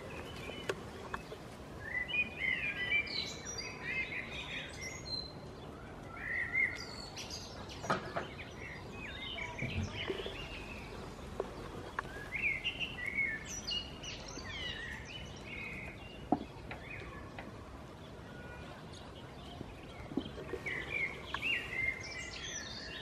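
Songbirds singing in bursts of quick, high chirps and warbles over a steady outdoor background hiss, with an occasional sharp knock.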